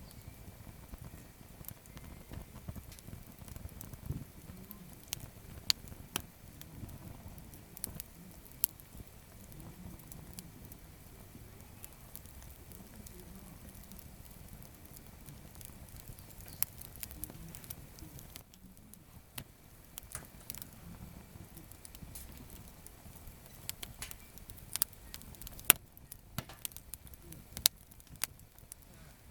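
Small wood campfire crackling, with sharp pops at irregular intervals over a low rumble of burning; a run of louder pops comes near the end. The fire is burning gathered deadwood, which burns weakly.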